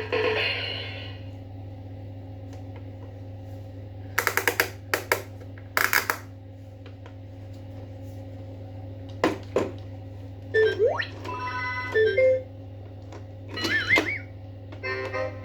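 A string of short, separate sound effects over a steady low hum: bursts of sharp clicks, a quick rising whistle, a run of stepped beeping tones, then a warbling tone near the end.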